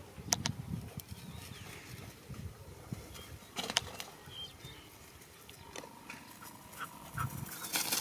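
Young dogs playing in grass: uneven low scuffling and snuffling sounds with a few sharp clicks, and a louder rustle near the end.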